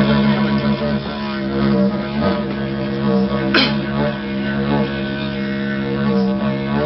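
Didgeridoo playing a steady low drone with shifting overtones, an acoustic guitar strummed along with it. A brief falling swoop cuts across the drone about halfway through.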